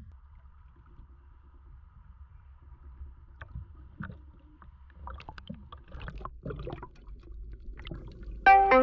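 A steady low rumble from a boat moving over the sea. From about halfway, water sloshes and gurgles around the camera as it dips under the surface, with scattered clicks and splashes that grow louder. Piano-like music comes in near the end.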